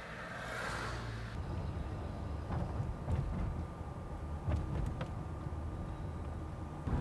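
Car engine and road rumble heard from inside the moving vehicle, getting stronger about a second and a half in, with a few faint clicks.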